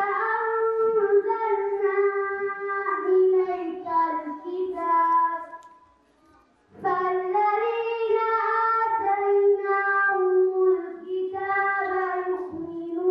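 A girl's voice chanting a Quranic recitation in Arabic, long melodic held notes in two phrases with a short pause about six seconds in.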